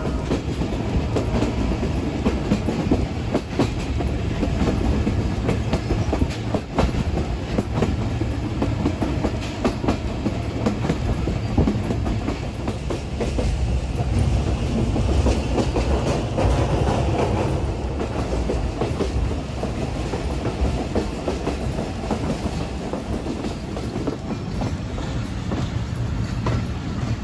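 Passenger train running along the line: steady rumble with an irregular clatter of the wheels over the rail joints.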